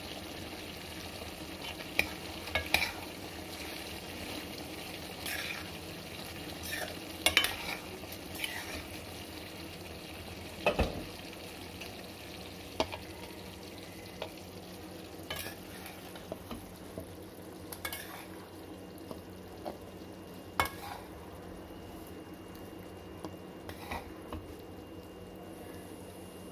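A spatula stirs and scrapes thick chickpea curry in a pan over a steady sizzle. Sharp clicks and scrapes ring out where the spatula knocks the pan, the loudest about two, seven and eleven seconds in, as the curry is spooned into a serving bowl.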